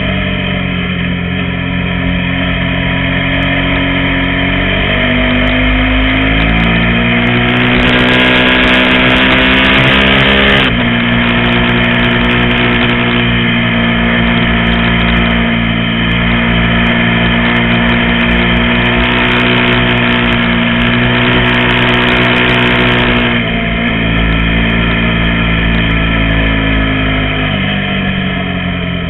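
KTM 990 Super Duke's V-twin engine under way: it pulls up in pitch, drops sharply about ten seconds in, runs steady, drops again, and falls away near the end.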